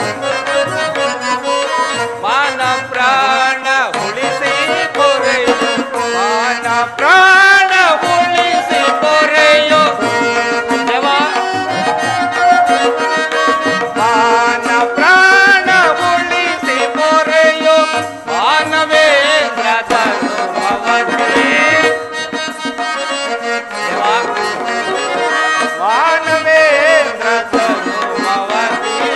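Instrumental drama accompaniment: an electronic keyboard plays a melody whose notes bend and glide, over a steady hand-drum rhythm.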